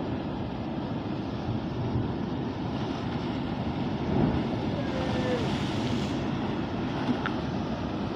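Sea surf washing against shore rocks, with wind rushing over the microphone; the noise swells a little about four seconds in.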